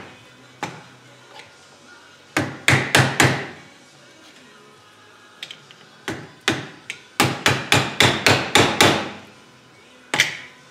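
Hammer blows on a small steel tool cutting away the crimped aluminium seal around the canister of a Bosch 044 fuel pump. The sharp metallic strikes come in quick runs of about four or five a second, a run of about five and later a run of about eight, with single strikes and pauses between.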